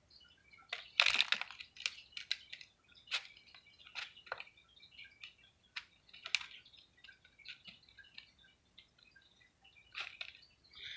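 A hand handling small pots of potting soil, pressing the soil and shifting the pots in their clear saucers: scattered soft clicks, taps and crunches, with a denser crunchy patch about a second in.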